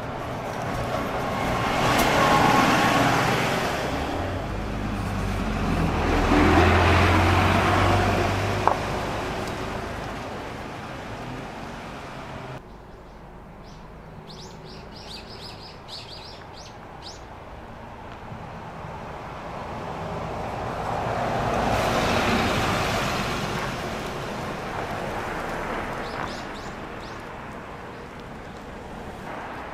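City buses and road traffic passing by. The first bus's engine swells loud twice in the first ten seconds, its low hum strongest around the second swell. After an abrupt cut, small birds chirp while another bus approaches, and it passes loudest a little past the middle.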